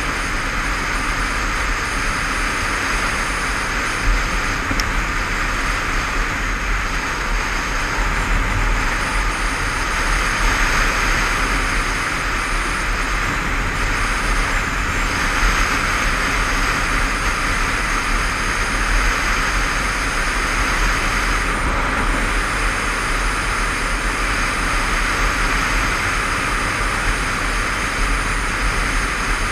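Motorcycle riding along at steady road speed: engine running under a constant rush of wind over the helmet-mounted microphone.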